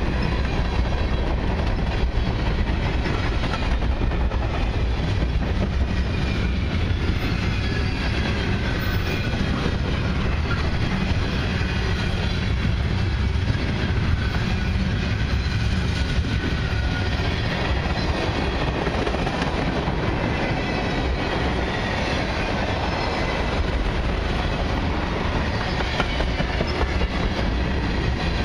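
Freight cars of a long mixed freight train rolling past close by: steel wheels on rail make a steady rumble and clatter, with a faint, thin, high wheel squeal at times.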